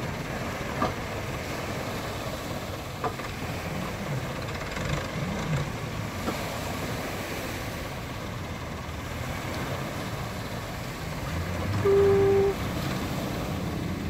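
Farm tractor's engine running and a speedboat's motor coming in, over waves washing up the ramp; the engine rumble rises about 11 seconds in. Near the end a single short horn-like beep sounds, the loudest moment.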